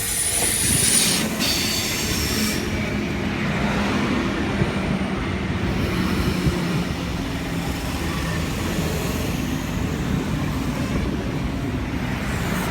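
Sydney K-set double-deck electric train arriving at a platform. High-pitched wheel and brake squeal for the first couple of seconds, then a steady low rumble and motor hum as it rolls in.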